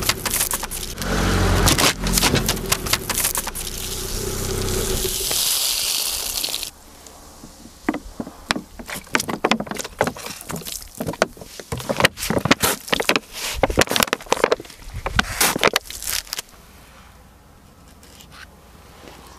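Car tyre rolling over and crushing crunchy objects, with the engine running: a low rumble and a rising hiss for the first several seconds, then a rapid run of sharp crunching cracks and snaps for about ten seconds, fading to a low steady hum near the end.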